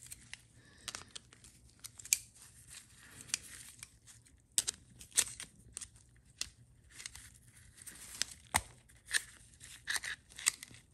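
Irregular small metal clicks and scrapes as a flat screwdriver pries at the stuck valve inside a TH350 transmission governor, along with hand-handling noise of the part.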